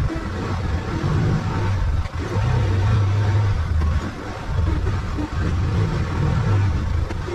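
Arctic Cat side-by-side's engine running under load while plowing snow, its low hum swelling and easing every second or two with the throttle.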